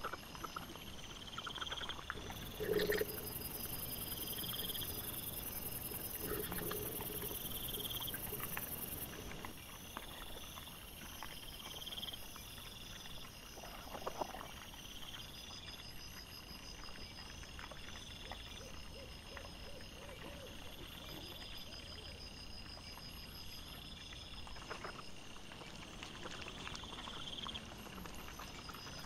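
Night insects chirping steadily in repeated pulsed trains, with a few brief louder low noises about three seconds in and again around fourteen seconds in.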